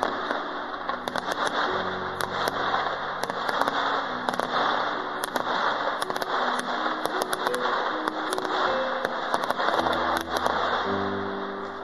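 Fireworks crackling and popping continuously, with many sharp pops scattered throughout, over music with slow, held low notes.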